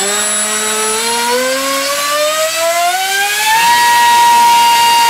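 NTM Rotor Drive 450-size 1700KV brushless outrunner motor on 6S, spinning an Aerostar 5.5x5.5 high-speed prop. It is throttled up with a rising whine for about three and a half seconds, then held at full throttle with a steady whine and prop rush, making quite a noise. At full power it pulls about 52 amps and 1100 watts, more than its 40 amp rating, and the motor didn't like it.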